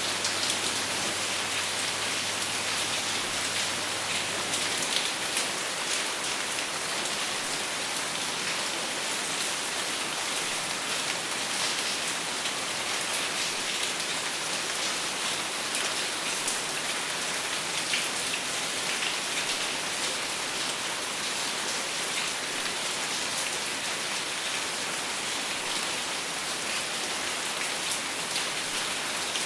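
Steady rain falling on a surface, a dense even patter of many small drops with no thunder.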